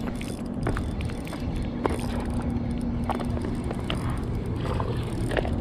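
Spinning reel being cranked to retrieve line: a steady gear hum that starts about two seconds in and stops a little past halfway. Under it runs a steady low rumble with scattered small clicks of handling.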